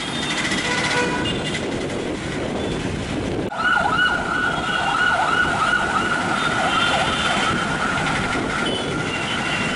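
Dense city street traffic noise at night, with short high tones sounding over it in the first few seconds. After a cut about three and a half seconds in, a steady siren-like wailing tone holds over the traffic to the end.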